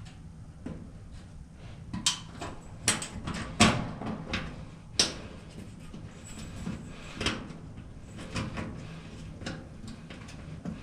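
An irregular series of sharp knocks and clicks, the loudest about two to five seconds in and lighter ones after, over a low steady hum.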